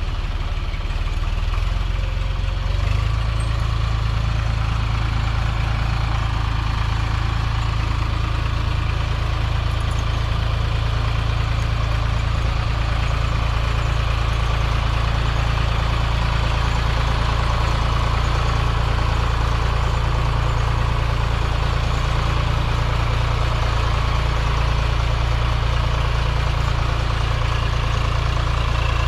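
Vintage tractor engine running steadily. It picks up and grows louder about three seconds in, then holds.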